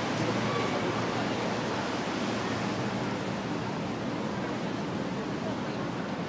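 Steady rushing noise aboard a river boat under way: the boat running and water washing past the hull.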